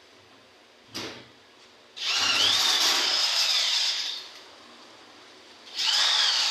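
Handheld electric power tool running in short bursts while working aluminium panels. A brief blip comes about a second in, then a run of about two seconds, then another run starting near the end. The motor's whine dips and recovers slightly during each run.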